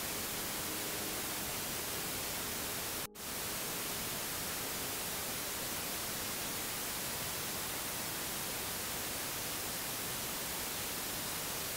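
Steady, even hiss of white noise with no music or tones in it, broken by a brief dropout about three seconds in.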